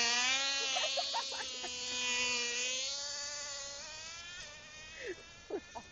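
Radio-controlled race car's motor giving a high, buzzing whine as the car speeds off. The whine sets in at once, holds a nearly steady pitch, and fades after about three seconds as the car draws away.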